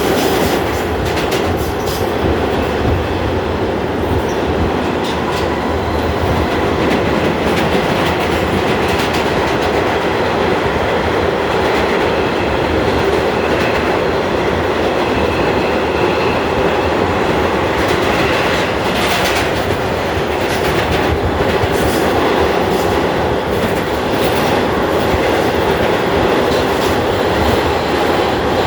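New York City subway F train running along the track, heard from on board: a steady, loud rumble of wheels and motors with the clickety-clack of wheels passing over rail joints, including a cluster of sharper knocks roughly two-thirds of the way through.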